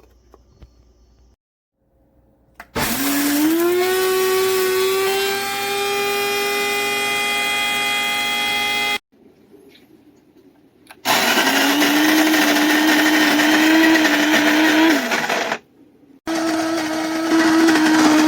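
Aiheal electric burr coffee grinder's motor running with a steady whine. It spins up about three seconds in, rising in pitch as it comes up to speed, then cuts off abruptly and starts again twice.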